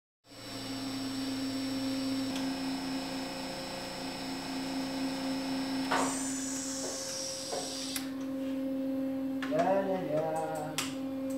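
Mitsubishi FREQROL FR-SE-2-7.5K-C spindle drive running on a test stand: a steady electrical hum with high whining tones. About six seconds in, a high tone glides downward, and a few clicks come near the end.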